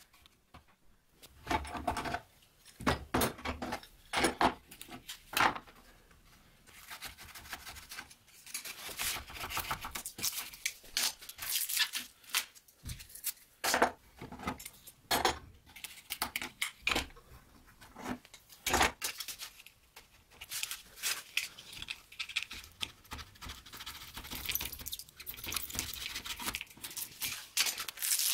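Plastic one-handed bar clamps being released and taken off a glued-up knife handle: irregular clicks and clattering knocks, with rustling of masking tape between them.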